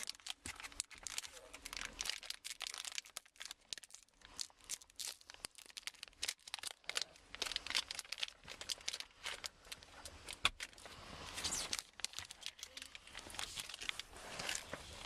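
A Garbage Pail Kids sticker value pack's wrapper being torn open and crinkled by hand, in a long run of irregular crackles and rips.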